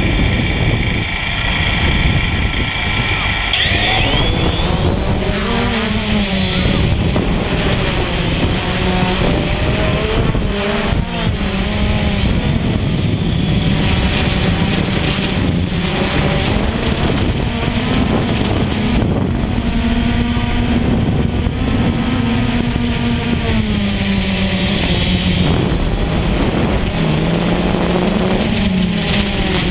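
DJI Phantom quadcopter's motors and propellers, heard close from its own camera: a steady whine at idle, rising in pitch about three and a half seconds in as it lifts off. Through the climb the propeller hum wavers up and down in pitch over a rushing noise.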